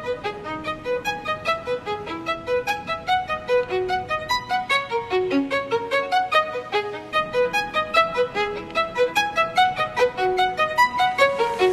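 Background music: a brisk melody of short, separate pitched notes, several a second, on a violin-like instrument.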